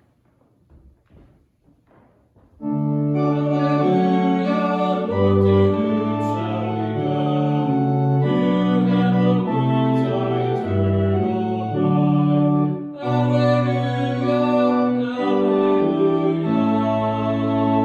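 Near silence, then about two and a half seconds in an organ begins playing a slow sequence of held chords that change every second or so.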